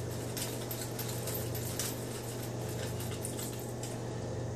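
Wooden pepper mill being twisted by hand, grinding peppercorns with a faint scratchy crackle, over a steady low hum.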